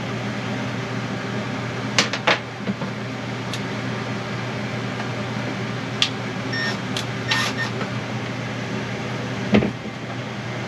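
Electric fan running with a steady hum. A few sharp clicks and knocks from tools being handled, the loudest about two seconds in and near the end.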